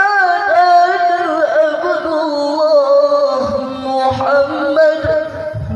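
A man sings a long, wavering melismatic phrase through a microphone in an Arabic sholawat praising the Prophet Muhammad. A low pulsing beat comes in during the second half.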